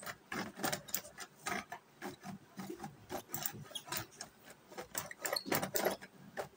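Hand-pulled cord vegetable chopper being worked, its spring-return cord pulled about twice a second so the blades spin with a clattering whir, chopping garlic and onion fine inside its plastic bowl.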